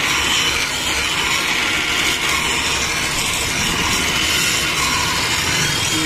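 Steel hedge-shear blade pressed against a spinning grinding wheel: a steady grinding scrape of metal on the wheel as the blade's cutting edge is sharpened.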